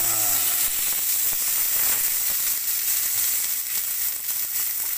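Ribeye steak sizzling on a hot sizzling plate, a steady, even hiss.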